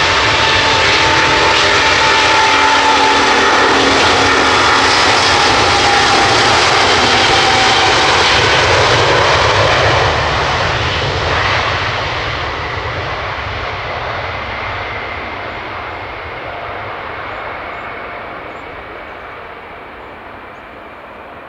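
Airbus A350-941's Rolls-Royce Trent XWB jet engines at take-off thrust as the airliner rolls past on its take-off run: loud jet noise with a whining tone. From about ten seconds in it fades steadily as the aircraft moves away down the runway.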